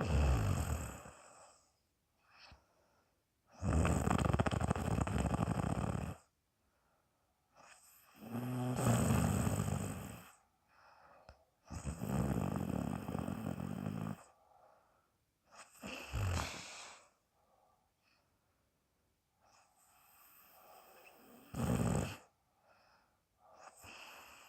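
A woman snoring loudly in her sleep: a run of noisy breaths about every three to four seconds, some with a low buzzing snore, others blown out through the mouth.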